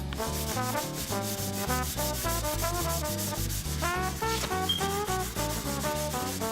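Jazz music with brass and a bass line stepping note to note, over a steady scratchy rhythm of about six strokes a second.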